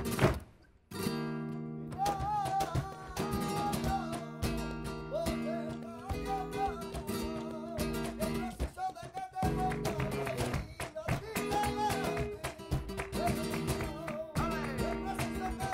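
Flamenco music: acoustic guitar with a singer's wavering voice over sharp percussive hits from cajón, hand clapping and the dancer's heels. The music cuts off for under a second just after the start, then comes back in.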